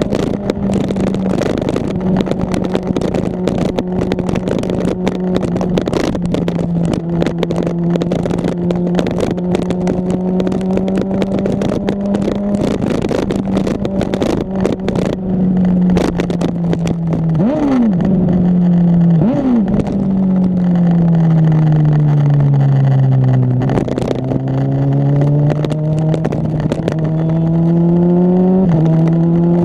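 2009 Honda CBR600RR inline-four with a Two Brothers exhaust, heard on board while riding. The engine note holds fairly steady, rises sharply twice partway through, falls as the bike slows, then climbs under acceleration and drops suddenly near the end at an upshift. Wind buffets the microphone, mostly in the first half.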